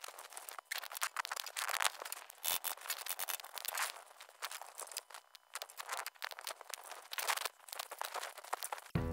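Irregular scraping and crackling handling noise from work on a grey plastic drain pipe set into a channel in the wall. Music comes in right at the end.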